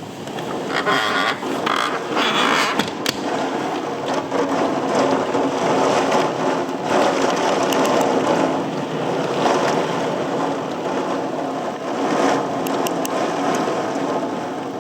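Thunderstorm gust-front wind rushing and buffeting the microphone, swelling and easing in strong gusts, with a few sharp clicks about three seconds in and again near the end.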